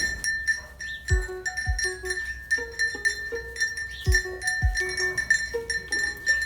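Background music with a steady beat: deep kick-drum thuds in pairs, short repeated notes and jingling percussion over a held high tone.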